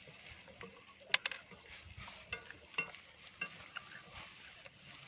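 Stirring food in a metal cooking pan: a utensil knocks and scrapes against the pan in a few short clinks, the sharpest about a second in, over a faint hiss.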